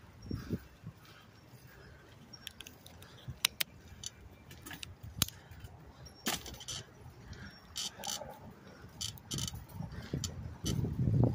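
A bicycle in motion rattling and clicking: irregular sharp metallic ticks and short jingles as it rolls over the pavement, with a low wind or tyre rumble that grows near the end.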